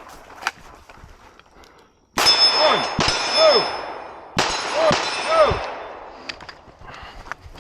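Shots fired at steel targets, in two loud groups about two seconds apart, each leaving a long metallic ringing from the struck steel.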